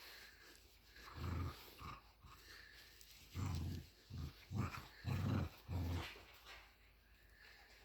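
A puppy growling in short, low bursts, about six of them over a few seconds, while guarding a toy from being taken.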